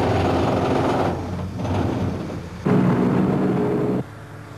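Refuse truck tipping its load of rubbish out of its raised rear body: engine running under a loud, noisy rush of the load sliding out. A little after halfway the sound swells again with a steady engine hum, then drops to a quieter background about four seconds in.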